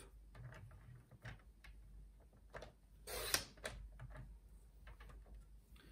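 Paper trimmer's cutting blade drawn once along its rail through a strip of designer paper: a short scraping swish about three seconds in, with faint clicks and taps of paper being handled around it.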